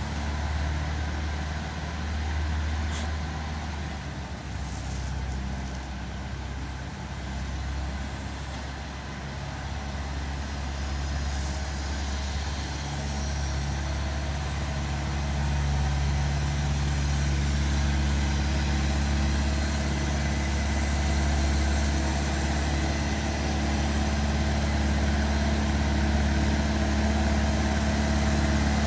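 Ice resurfacing machine's engine running steadily, getting louder about halfway through.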